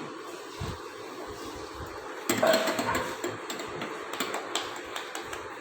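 A few light knocks and clatters of kitchen items being handled and set down, loudest about two seconds in, over a steady room hiss.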